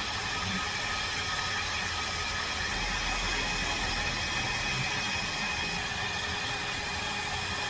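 Heat gun running steadily: an even fan hiss with a faint high whine, blowing hot air to shrink heat-shrink tubing over a soldered wire splice.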